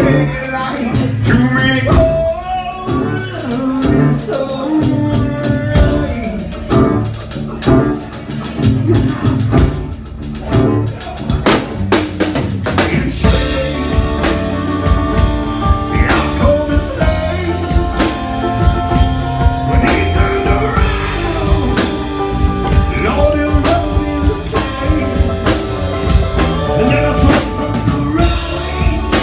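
Live rock band playing loud: a man singing into a handheld microphone over a drum kit and an acoustic guitar.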